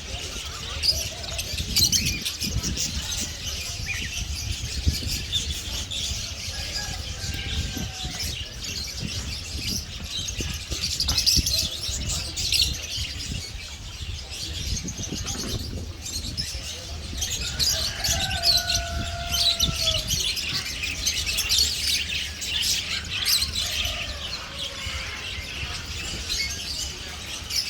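Many small birds chirping and tweeting at once in a dense, continuous chatter, over a steady low rumble.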